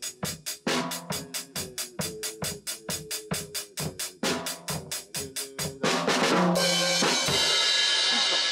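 Drum kit played in a slow, steady verse beat of snare and bass drum at about five strokes a second, ending about six seconds in with a cymbal crash that rings on and fades.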